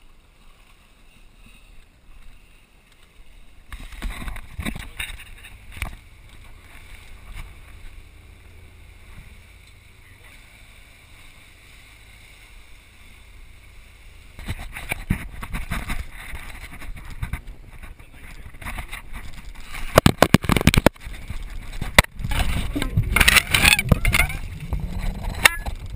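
Boat running at sea: a low steady engine drone with water rushing past and wind buffeting the microphone. It grows much louder about halfway through, with strong gusts of wind noise near the end.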